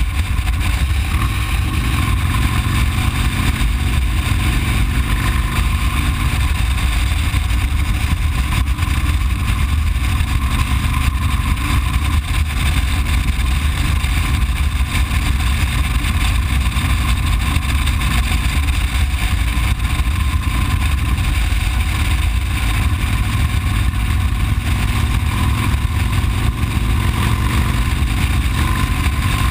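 A motorcycle cruising steadily along the road, with a low, even rumble of wind on the bike-mounted microphone over the running engine.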